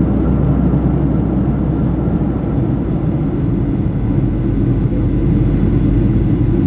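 Steady in-flight cabin noise of a Boeing 737-900 during descent: the drone of its two CFM56-7B26 turbofans and the rush of air, with a low rumble and a faint steady whine.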